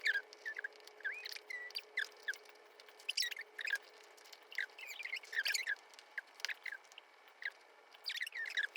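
A rapid series of short, high-pitched chirps and squeaks, a few each second, some with quick up-and-down slides, mixed with sharp clicks over a faint steady hum.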